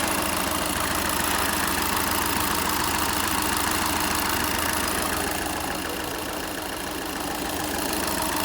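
Volkswagen Polo TDI diesel engine idling steadily, easing off slightly in level for a couple of seconds in the middle.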